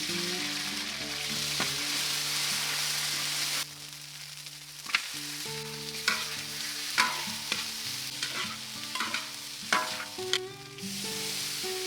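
Food sizzling in a hot pan, a steady hiss that drops away after about three and a half seconds. A run of sharp clacks and scrapes from a utensil stirring the pan follows, and the sizzle picks up again near the end.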